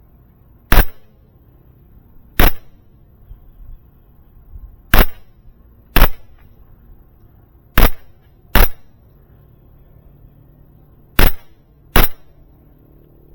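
E&C Glock 17 airsoft pistol firing eight sharp shots at an uneven pace, several of them in quick pairs.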